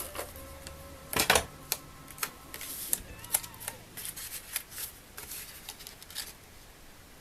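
Paper card being handled and pressed down on a work surface: a run of light taps, clicks and rustles, the loudest cluster about a second in.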